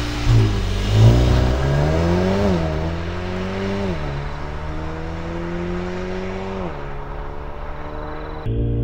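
Mercedes-AMG GLB 35 4MATIC's turbocharged four-cylinder at full throttle, accelerating away from a standing start. The note climbs through the gears, dropping in pitch at three upshifts, and grows duller as the car pulls away. Near the end it switches suddenly to a closer, louder engine note.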